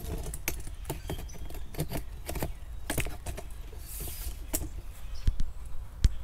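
Light rustling, crinkling and ticking of vinyl pinstripe tape and its backing paper being handled and pulled apart by hand, with a couple of sharper knocks near the end.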